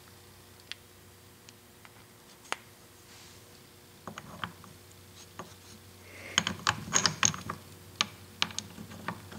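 Small steel gears and a shaft of a South Bend 9-inch lathe apron clicking and clinking as they are handled and fitted together in the apron housing: scattered light clicks, with a quick run of clinks about two-thirds of the way through.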